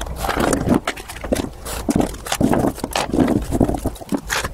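Cosmetics and small objects being handled and set down in a drawer: irregular clicks, knocks and rustling.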